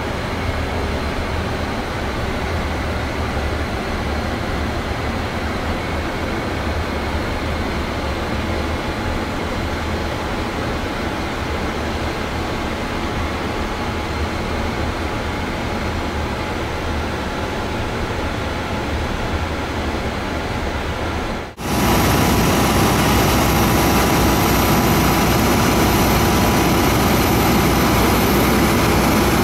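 Steady ambient hum inside a parked Boeing 787's flight deck. About two-thirds of the way through it cuts abruptly to louder, steady aircraft noise on the apron beside the jet, with a high whine over a low rumble.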